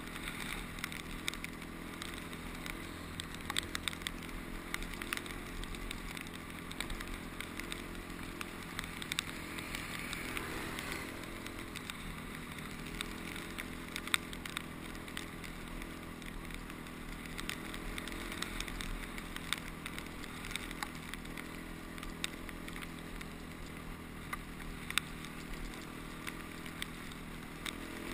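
Honda CRF250X dirt bike engine running under way on a gravel track, heard from the bike itself with wind rumble on the microphone. The engine note shifts, rising and dropping about ten seconds in, and scattered sharp ticks run through it.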